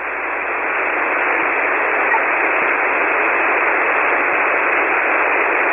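Single-sideband shortwave receiver hiss on the 40-metre amateur band: a steady, even rush of static squeezed into the narrow voice passband, heard between transmissions while no station is keyed. It swells slightly in the first second, then holds level.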